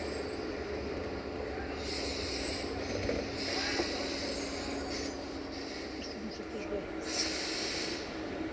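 A train standing in the station with its engine running steadily, and short hisses of air three times.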